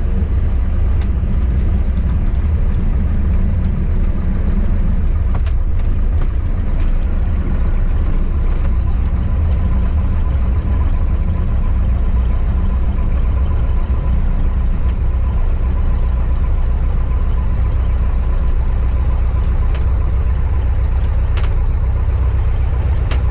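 Cessna 150's four-cylinder Continental O-200 engine and propeller at idle, a steady low drone heard inside the cabin as the plane rolls out on the runway after landing.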